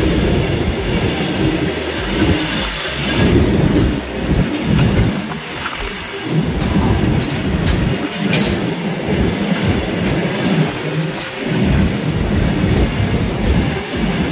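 Freight train of goods wagons passing about a foot away: a loud, continuous rumble from the wheels on the rails, with irregular sharp clicks and knocks throughout.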